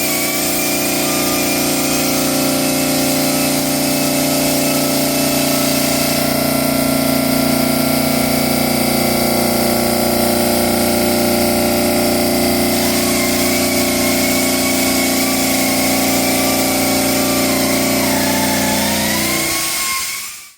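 Park Industries Fusion CNC waterjet saw running steadily: a constant machine drone with a thin high whine that wavers in pitch. It fades out near the end.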